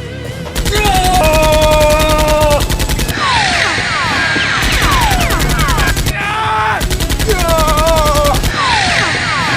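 Rapid automatic-gunfire sound effect in three bursts: a long one of about two and a half seconds, then two shorter ones of about a second and a half. Short falling whizzes sound between the bursts, and a voice cries out over the first and last bursts.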